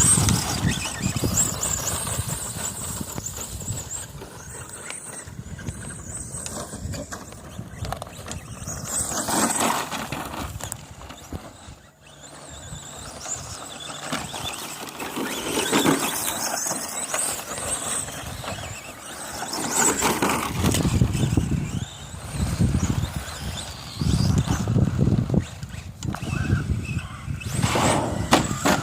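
Electric radio-controlled short-course truck running on loose dirt: a high motor whine that comes and goes in surges as the throttle is worked and the tyres spin.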